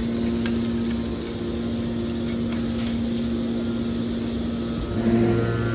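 Scrap-metal baler running: a steady machine hum, getting louder with a deeper hum about five seconds in.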